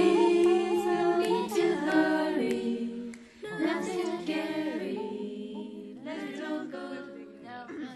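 Unaccompanied singing in long, held notes, growing gradually quieter and fading out near the end.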